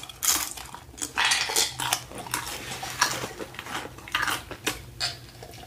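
Tortilla chips crunching as they are bitten and chewed, with irregular crisp cracks and clinks of a metal fork.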